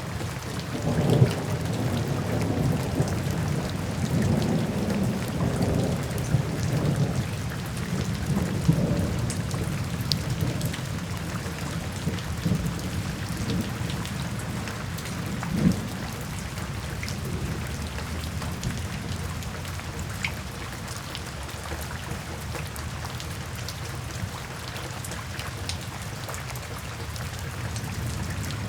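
Steady rain falling with rolling thunder: several low rumbles in the first half, one sharper crack about 16 seconds in, then the thunder dies back leaving rain and scattered drips.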